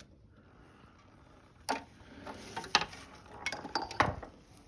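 A handful of sharp clicks and knocks spread irregularly over a few seconds, the loudest near the end: tools or parts being handled.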